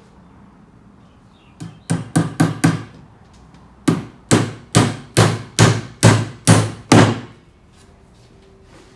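Hammer driving a nail through a wooden cabinet side into a shelf end: a few light taps to start the nail, then a run of about eight steady, hard blows, two to three a second.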